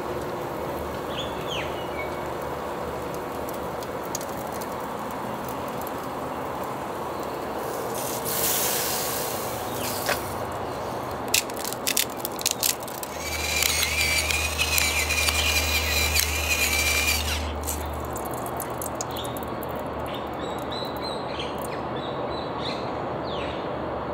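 Birds chirping outdoors over a steady background hiss. About halfway through come a few sharp clicks as pork belly is laid on the grill, followed by a louder hiss with a thin whine and low hum lasting about four seconds.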